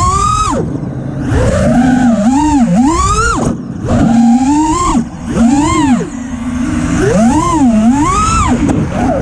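FPV freestyle quadcopter's brushless motors and propellers whining, the pitch swooping up and down every second or so as the throttle is punched and chopped, with a few brief dips where the throttle is cut.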